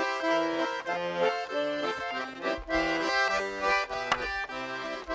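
Accordion music: a traditional folk tune played in quick, regular chords over a bass line.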